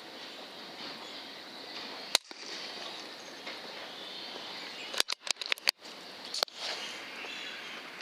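A single sharp crack about two seconds in, typical of a .22 PCP air rifle shot, then a quick run of sharp clicks about five seconds in, over a steady outdoor hiss.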